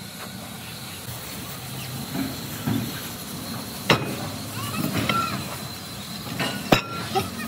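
Heavy steel plate rings being handled on a truck bed: two sharp metal knocks, one about four seconds in and one near the end, over steady background noise.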